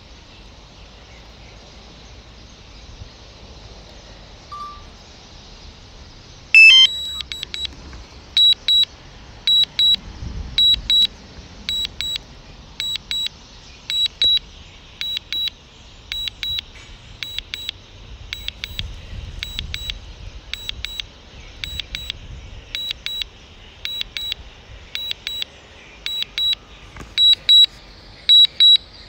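Return-to-home alert of a DJI Mavic Mini's flight controls: a sharp tone about a third of the way in, then pairs of short high beeps repeating steadily, the signal that the drone has switched to flying itself home.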